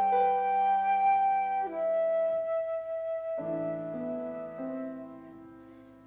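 Slow instrumental music: a flute holding a sustained melody over keyboard chords, the phrase fading away near the end.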